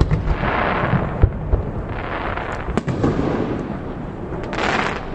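Aerial fireworks display: shells bursting in repeated deep booms and a few sharp bangs, with three stretches of hissing crackle, one of them near the end.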